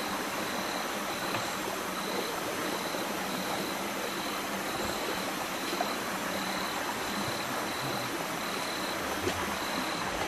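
Steady rushing of running water, with a thin high note pulsing about one and a half times a second.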